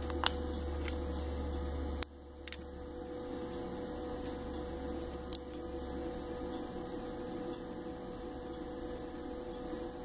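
Steady low electrical hum, with a few small clicks: a sharp one about two seconds in, where the lowest part of the hum drops away.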